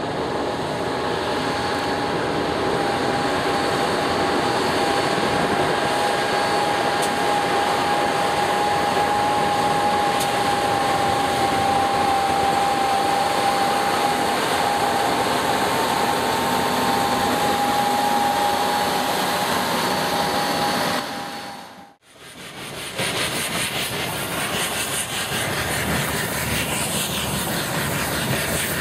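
Snowdon Mountain Railway diesel rack locomotive running under power: a steady engine drone with a held whine over it. The sound drops out suddenly about three-quarters of the way through, then the steady running noise comes back.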